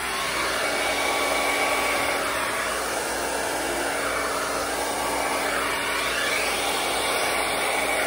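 Handheld hair dryer running steadily, a loud rush of air with a faint steady motor whine, aimed close at a canvas to push wet acrylic paint.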